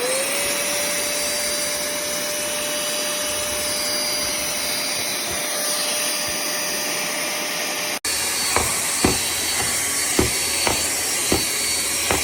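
Cordless handheld vacuum cleaner switching on, its motor spinning up to a steady high whine over a loud rush of air. After about eight seconds a run of short knocks comes in over the running motor.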